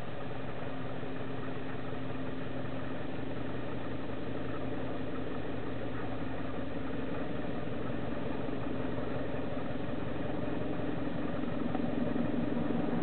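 Steady droning hum of a running machine, with a constant pitch, getting a little louder near the end.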